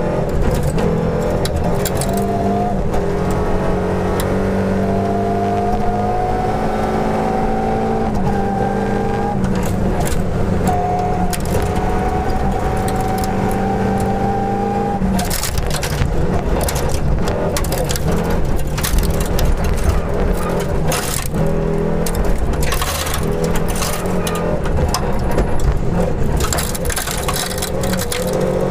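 Volvo 242 rally car's engine under hard throttle, heard inside the cabin: a long pull with the pitch climbing slowly, dipping briefly about eight seconds in and again a little later. From about halfway the revs rise and fall more often, with loose gravel clattering against the car's underside.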